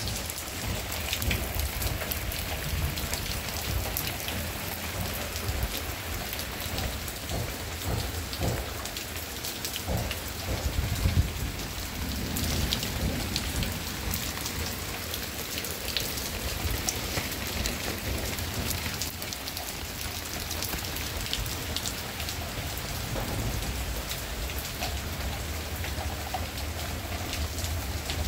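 Steady rain falling on garden plants and ground, with individual drops ticking through the hiss. A low rumble runs underneath, swelling to its loudest about ten to eleven seconds in.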